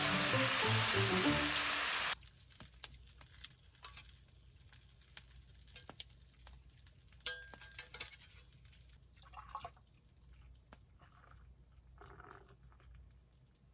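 Background music over a dense sizzle, which cuts off abruptly about two seconds in. Then it goes quiet, with a low hum and scattered small clicks and knocks.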